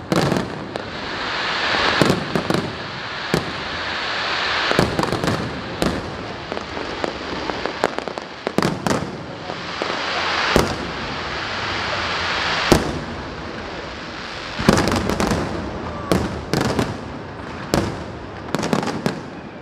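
Aerial fireworks show: shells bursting in sharp bangs every second or so, irregularly, over a continuous crackling hiss that swells and fades.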